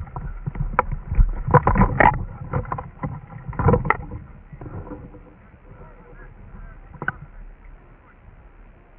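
Irregular knocks and thuds, most of them in the first four seconds and one more near seven seconds, over a low rumble.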